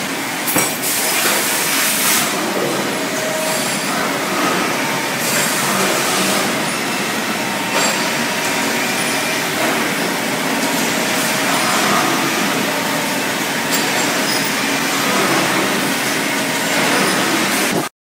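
Factory-floor din of metalworking machines running: a steady, loud, noisy clatter with scattered metallic clinks. It cuts off abruptly near the end.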